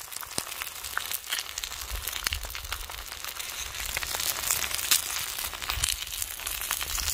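Bacon and eggs sizzling in a frying pan over a campfire: a steady hiss dotted with many small pops and spits.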